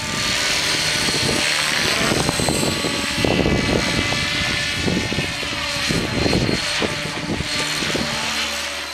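Align T-Rex 600EFL Pro electric RC helicopter in flight: a high motor and gear whine with rotor noise that rises and falls in pitch as it manoeuvres, while strong wind buffets the microphone.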